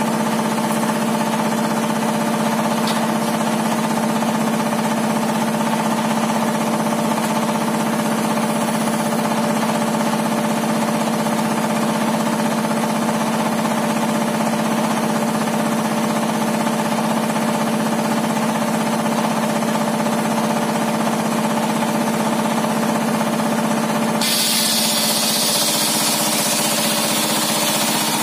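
Homemade circular-saw table running, a steady machine hum at an even pitch. About 24 seconds in, a high hiss joins it and the hum changes.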